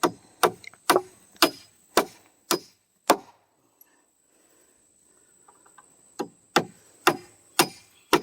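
Hammer driving nails by hand into a wooden floor-frame board: sharp blows about two a second, then a pause of about three seconds midway before the hammering starts again.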